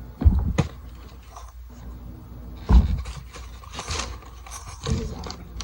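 Shoebox and paper packaging being handled: a heavy thump about a quarter second in and another near three seconds, with crinkling, rustling paper between and after.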